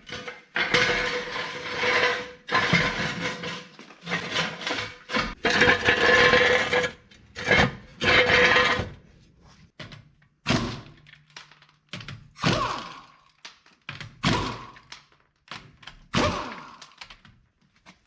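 Work on a car's front wheel: noisy mechanical stretches a second or two long for the first half, then several separate sharp metal clanks that ring briefly.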